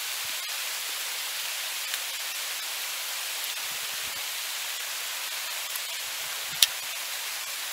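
Steady hiss of hail falling, with one sharp click near the end.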